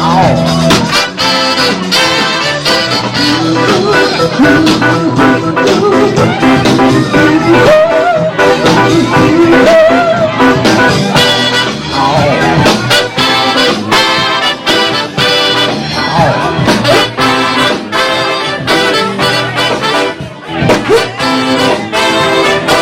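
Live band playing an upbeat number with a horn section of trumpet and trombone over a steady drum beat.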